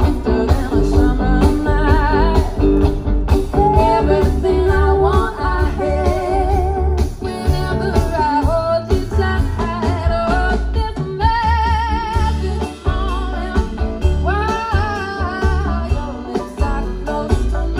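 Live band playing through the PA: a woman singing long, wavering held notes over electric guitar, upright bass and drums.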